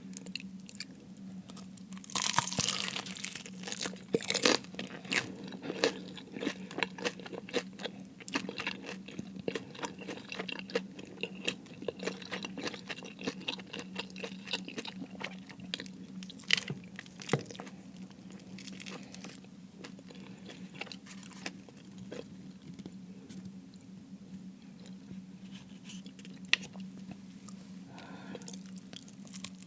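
Close-miked biting and chewing of crispy fried food. A loud crunchy bite about two seconds in is followed by crackling, crunchy chewing with many small clicks.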